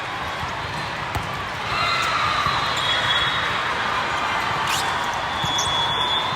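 Volleyball rally in a gym: a few sharp hits of the ball over a steady background of spectator noise, which grows louder about two seconds in.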